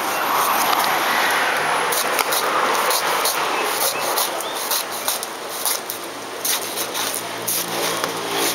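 A cleaver chopping and shaving the husk off a roasted young coconut on a wooden board: a run of sharp, irregular knocks. A steady rushing noise sits under the first few seconds.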